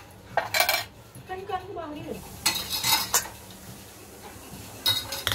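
Stainless-steel colander and pot clanking and scraping as they are handled, in three bursts: about half a second in, around two and a half to three seconds in, and near the end.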